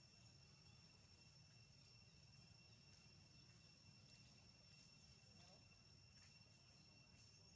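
Near silence with a faint, steady, high-pitched drone of insects over a low background rumble.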